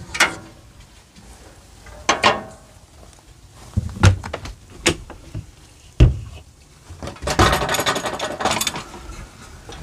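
Metal latches clicking and hardware clunking as a trailer's rear swing-out spare-tire carrier is pulled aside and the rear compartment door is unlatched and opened, with two sharp knocks about four and six seconds in. Near the end, a rapid rattle of small clicks lasting about a second and a half.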